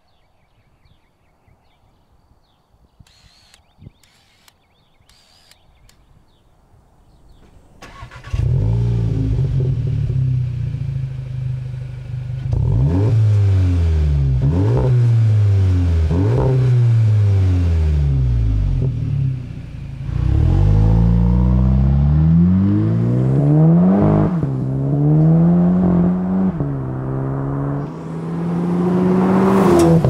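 Volkswagen Mk7.5 GTI's turbocharged 2.0-litre four-cylinder through a COBB titanium cat-back exhaust. It starts up about eight seconds in and idles, is revved in a series of quick blips, then accelerates hard with rising pitch, breaking at two upshifts.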